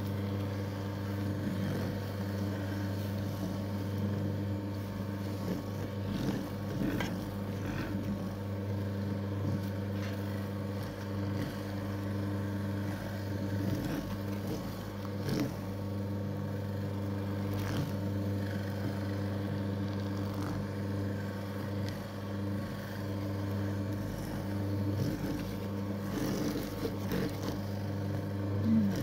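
National electric mochi maker's motor running steadily with a low hum as it kneads steamed glutinous rice into mochi, with a few soft knocks as the dough ball turns in the bowl. The rice is not yet fully smooth, and a few grains remain.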